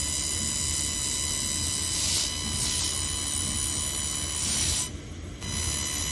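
1500 W handheld fiber laser welder running while welding 6 mm stainless steel: a steady hiss with a high electronic whine over a low hum. There are two short swells of hiss about two seconds in, and the sound drops out for about half a second around five seconds in.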